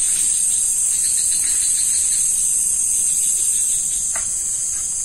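Steady high-pitched chorus of night insects, an unbroken shrill drone.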